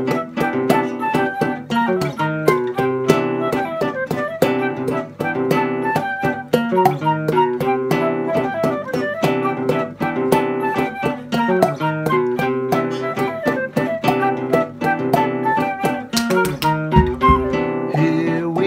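Instrumental samba: an acoustic guitar plays rhythmic chords, a flute plays the melody, and body percussion adds sharp hand slaps and claps in a steady, quick samba rhythm.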